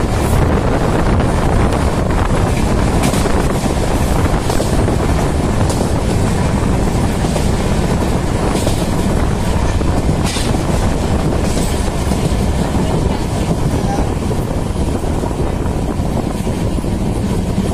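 Intercity passenger train running, heard from on board: a steady loud rumble and rush of air, with a few scattered sharp clicks.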